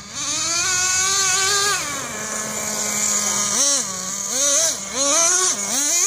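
Small nitro engine of an RC buggy revving. Its high-pitched note holds high for about two seconds, drops to a lower steady note, then rises and falls in quick repeated throttle blips through the second half, with a high hiss over it.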